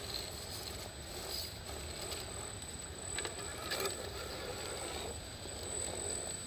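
RC4WD Trail Finder 2 scale crawler truck driving over rough ground, its small electric motor and geartrain running. A cluster of clicks and knocks comes about three to four seconds in.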